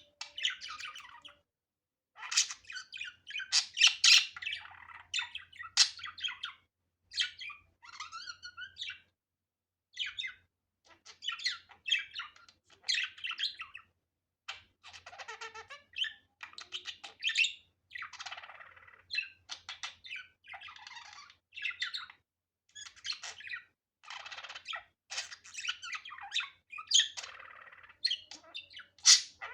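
Budgerigar chattering and warbling: rapid strings of chirps, squawks and twittering notes with short pauses between phrases.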